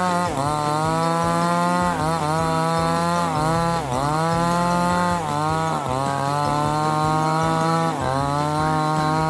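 Two-stroke chainsaw running at high revs while cutting wood. The engine pitch sags and recovers again and again, every second or two, as the chain bites into the log.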